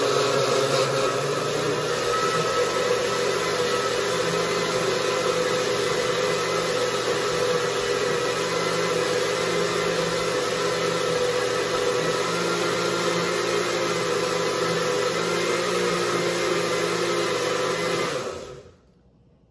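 Countertop blender with a glass jar running at a steady speed, blending a liquid coquito mixture, then switched off near the end, its sound dying away within about half a second.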